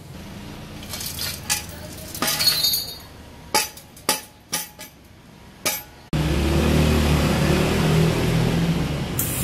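Scattered sharp metallic clinks and taps of loose steel pieces from a cut-open stock motorcycle muffler. About six seconds in, a louder steady noise with a low hum abruptly takes over.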